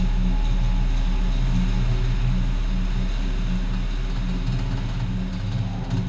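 Drive machinery of a fully automatic car park's lift and car carrier running: a steady electric hum with a low drone and a hiss, and a few clicks near the end as the carrier moves.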